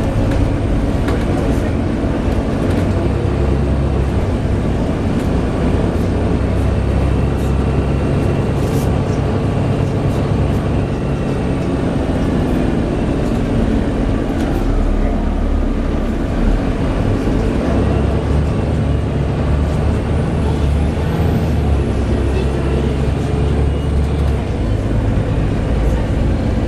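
Volvo B7TL double-decker bus heard from on board, its six-cylinder diesel engine running as the bus drives, the engine note changing several times. Faint thin squeals sound over it, one falling in pitch about two-thirds of the way through.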